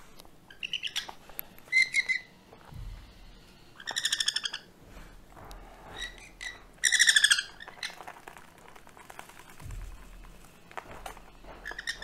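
Sun conure chicks calling during syringe hand-feeding: a series of short, rapid stuttering calls, the loudest about seven seconds in.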